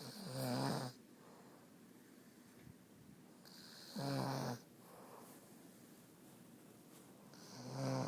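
A woman snoring in her sleep: three loud, low-pitched snores about four seconds apart.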